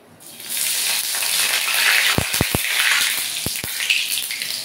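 Panch phoron, a dried red chilli and a bay leaf hitting hot mustard oil in a steel kadai and sizzling loudly as the spices temper. The sizzle starts just after they drop in. A few sharp pops come at about two seconds and again at about three and a half seconds.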